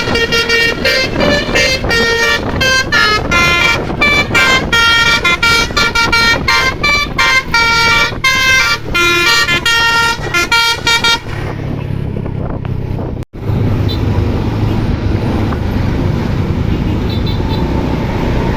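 A bus's multi-tone telolet horn plays a fast melody of short notes for about eleven seconds, then cuts off. A low steady rumble follows, briefly dropping out about two seconds later.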